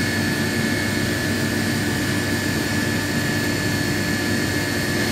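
Hass TM3 CNC toolroom mill running with a steady machine whir and a constant high whine over a low hum.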